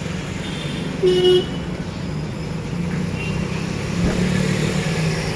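Street traffic noise with a steady low hum, and a single short car-horn toot about a second in.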